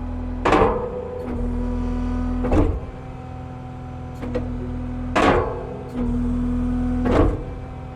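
Kubota SSV75 skid steer's diesel engine running while its hydraulics work a skeleton grapple: a steady hydraulic whine in stretches of about a second, and four loud metal clanks, about one every two seconds, as the grapple's claws and frame hit their stops.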